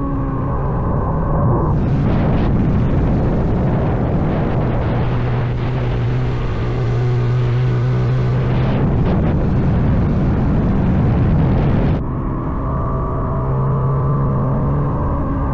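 CFMoto Papio's single-cylinder motorcycle engine running at a steady pitch while riding, under heavy rushing wind noise on the microphone.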